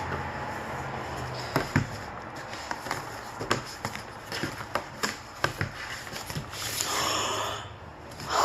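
Light clicks and taps of photocards and album packaging being handled, with a second-long breathy hiss about seven seconds in.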